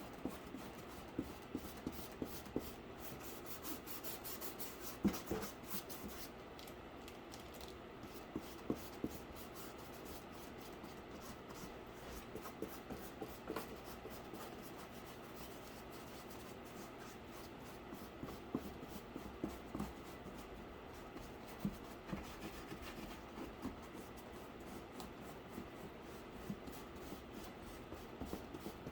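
Paintbrush scratching across cardboard in short, irregular strokes, with small ticks in between.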